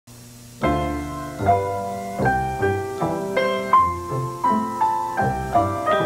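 Piano music: a slow sequence of struck chords with a melody on top, beginning about half a second in.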